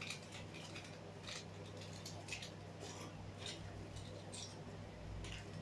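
Loose plastic Lego bricks clicking and rattling lightly as they are picked through and handled on a tabletop, in irregular small clicks, over a steady low hum.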